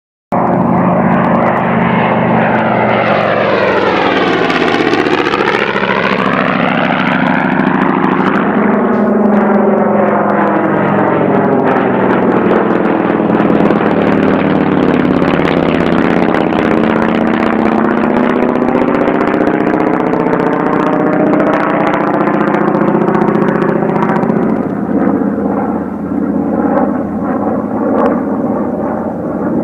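Propeller aeroplane engine droning, starting suddenly right at the beginning. Its tone sweeps and swirls over the first several seconds, then holds steady, turning a little uneven near the end.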